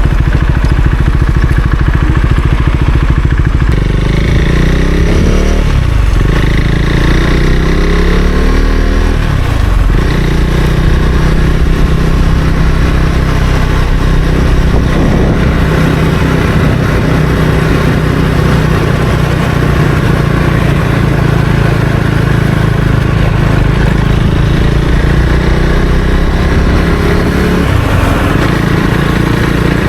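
Husqvarna Svartpilen 401's single-cylinder engine under way. It rises in pitch and drops back twice a few seconds in, as when accelerating through the gears, then runs steadily, with another rise near the end.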